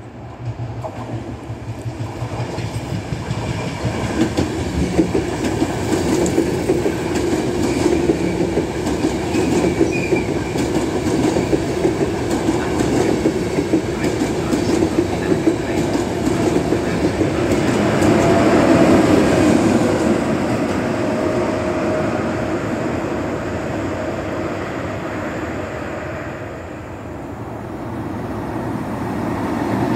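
Trenitalia Intercity passenger train running past the platform, its wheels clacking over the rail joints, getting louder over the first few seconds as it approaches. The sound dips briefly near the end, then another train's approach begins.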